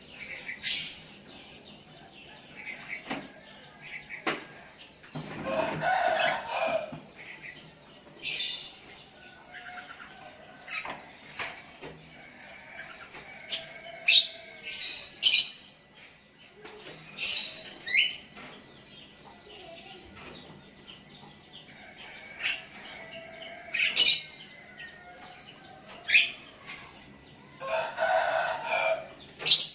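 Sooty-headed bulbuls calling: short, sharp chirps at irregular intervals, a lure bird calling out and other bulbuls answering it. Twice there is a longer, lower call of about two seconds.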